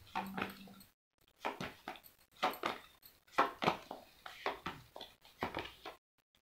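Tarot cards being shuffled by hand: a run of short, soft flaps and rustles, about two a second, stopping suddenly near the end.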